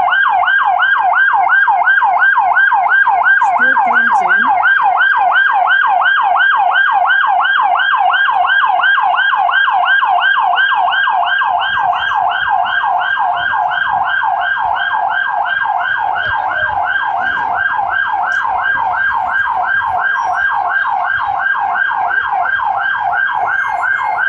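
Electronic yelp siren on the convoy's escort vehicles, sweeping rapidly up and down in pitch about four times a second without a break. It eases off slightly about halfway through as the lead vehicle passes.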